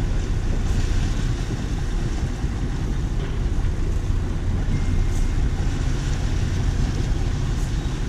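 Charter sport-fishing boat's engines running steadily at low speed while it manoeuvres, an even, low-pitched drone.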